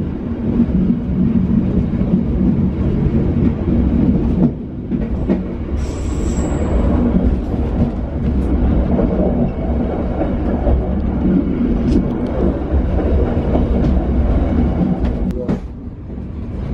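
Diesel-hauled passenger train running on rails, heard from aboard: a steady low rumble with engine hum, sharp wheel clicks over rail joints and points now and then, and a short high squeal about six seconds in.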